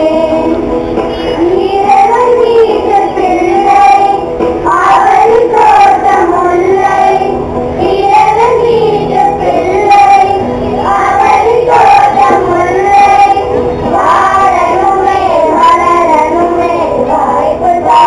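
A song: a high voice singing a melody over backing music.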